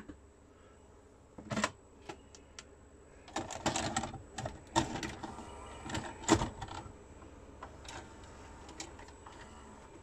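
A VHS cassette pushed through the flap of a JVC HR-J258 VCR and taken in by its loading mechanism: a string of mechanical clicks and clunks, the loudest about six seconds in, with a light motor hum as the tape is drawn in and threaded.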